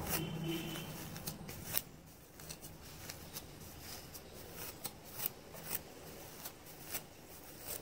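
Wide-tooth comb dragged through wet, product-coated coily hair to detangle it, making faint, irregular crackles and clicks.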